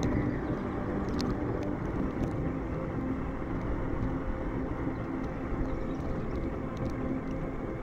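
Axial Ryft RC rock bouncer running across sand, its electric motor and drivetrain making a steady running sound.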